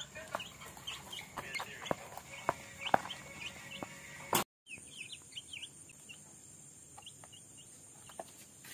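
Young chicks peeping in short, falling chirps, with scattered light taps as they peck at feed on cardboard. About halfway through, the sound changes to a steady high cricket trill with a few fainter peeps.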